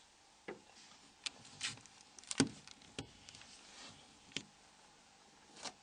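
Scattered small clicks and taps of plastic as a Nokia 6125 phone's battery cover is unlocked and removed, about nine faint clicks at uneven intervals.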